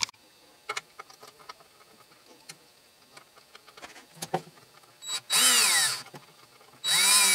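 Cordless drill-driver running in two short bursts of about a second each, its pitch bending as it drives a small screw that fastens the toy steam engine's cylinder to its mounting casting. Faint clicks of small metal parts being handled come before.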